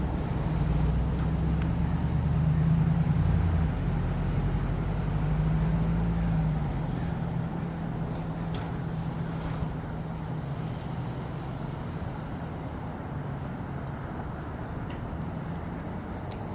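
A motor running steadily with a low hum, slowly fading away over the second half.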